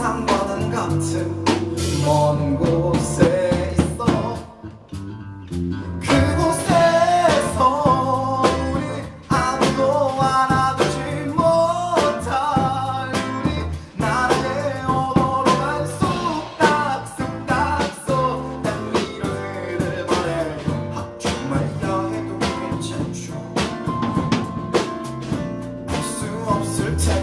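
Live band playing an upbeat pop song: a male singer over electric bass, acoustic guitar, keyboard and a steady percussion beat, with a brief quieter break about four seconds in before the vocal comes back.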